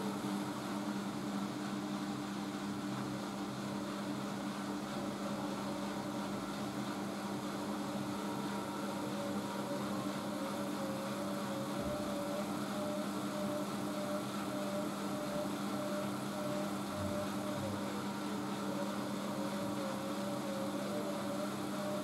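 Siemens Siwamat IQ 716 front-loading washing machine running: a steady motor hum with a higher whine above it that wavers slightly in pitch.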